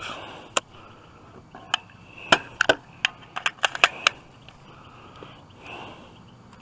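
A string of about a dozen short, sharp clicks and knocks, several coming quickly one after another in the middle, from an AR-15 rifle being handled and readied before shooting.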